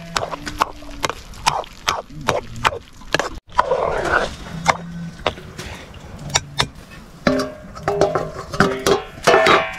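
A metal ladle stirs a wok of simmering potatoes, clinking and scraping against the iron pan with sharp knocks a few times a second. Near the end a steel plate is set on the wok as a lid.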